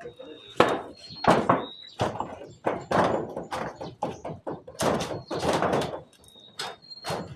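Irregular heavy knocks and thuds from carpentry work on a roof, about a dozen in seven seconds, each with a short ring after it.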